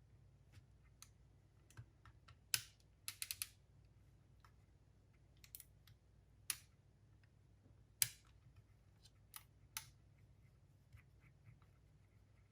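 Small parts and tools being handled during a cassette player repair: scattered light clicks and taps, with a quick run of four clicks about three seconds in.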